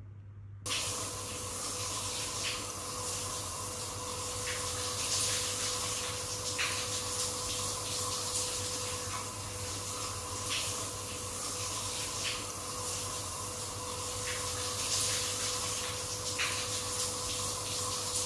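Hot-spring water pouring steadily into a stone bathtub, a continuous rushing splash with small splashes every second or two and a thin steady tone underneath.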